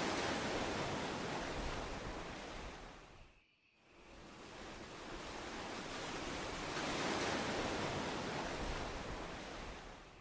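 A rushing noise like surf or wind that swells and fades twice, dropping away briefly about three and a half seconds in.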